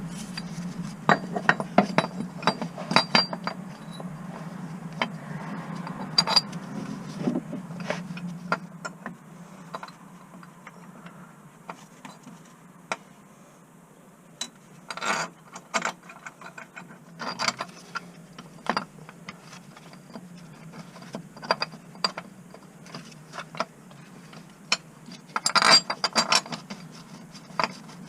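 Irregular metallic clicks and clinks of hand tools and parts being handled during clutch work on a car, in clusters with pauses, over a steady low hum.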